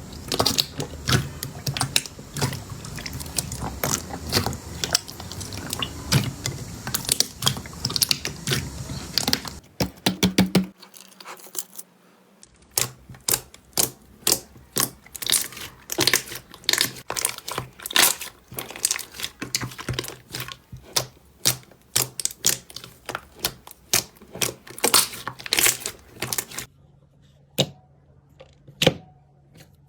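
Slime being squeezed, poked and stretched by hand, giving rapid sticky clicks and crackling pops. The sound stops briefly about ten seconds in, resumes with similar rapid clicking, and thins to a few scattered pops near the end.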